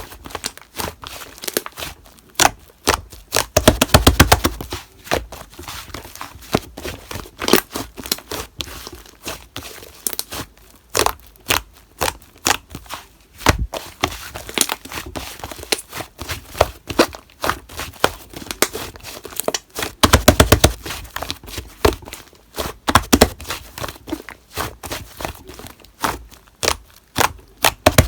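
Slime being squeezed and pressed by hand, giving a stream of sharp wet clicks and pops, with denser runs of crackling about four seconds in, around twenty seconds in, and near the end.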